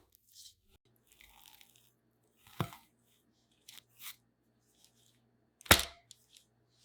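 Two sharp knocks about three seconds apart, the second much louder, with a few lighter ticks in between over a faint low hum.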